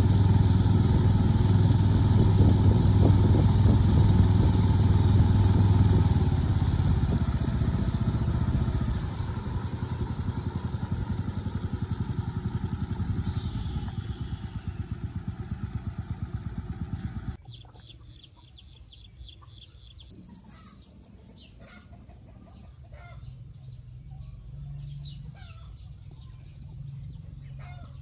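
A small motor engine running with a rapid pulsing beat, growing fainter and then cut off abruptly about seventeen seconds in. After it, birds call quietly with short chirps.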